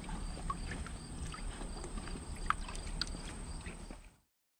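Outdoor riverside ambience: a steady low rumble with scattered small ticks and chirps over it, fading out to silence about four seconds in.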